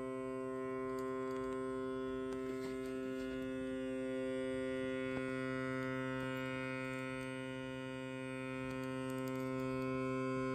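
3D printer stepper motor grinding with a steady buzzing hum while homing, driving on instead of backing off after reaching the home position, the fault the title calls a grinding noise.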